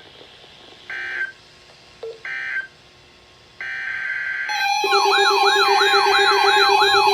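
Short bursts of Emergency Alert System SAME data tones, the shrill two-pitch digital burst that closes and opens a weather radio alert: two short bursts about a second apart, then a longer one about three and a half seconds in. About a second later a loud siren-like warble starts, rising and falling more than once a second over a steady tone, and keeps going.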